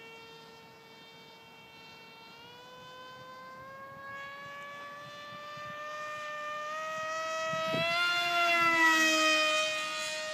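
Electric brushless motor and 6x5 propeller of a Tuffwing 32 RC flying wing whining in flight. The whine climbs slowly in pitch and grows louder, loudest about eight to nine seconds in, then drops a little in pitch and level, like a fast pass overhead.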